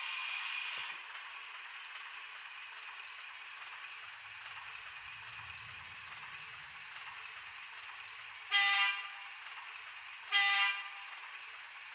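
ESU LokSound decoder playing diesel shunter sounds through a loose speaker: a faint steady engine idle with a low rumble in the middle, then two short horn toots about two seconds apart near the end. It is the first sound test of the decoder on a model Class 03 shunter.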